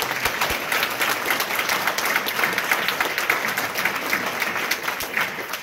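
Congregation applauding, a dense run of many hands clapping that thins out near the end.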